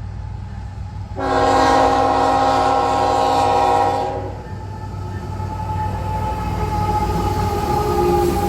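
Diesel freight locomotive sounding its multi-chime air horn in one long chord of about three seconds, starting about a second in, over the steady low rumble of the approaching train.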